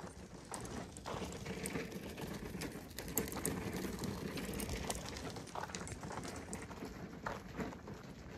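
Footsteps and the wheels of a loaded cart crunching and rattling over a gravel trail, a steady crunch scattered with small irregular clicks.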